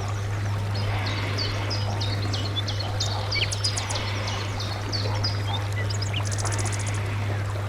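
Small birds chirping, many short high calls overlapping throughout, with a rapid high trill a little after six seconds, over a steady low hum.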